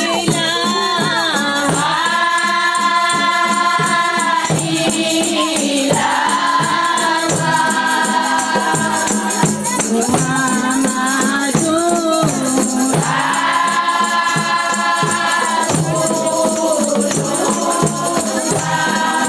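Women's choir singing a deba, the Comorian Sufi devotional chant, in long held phrases over a steady beat of rattling hand percussion.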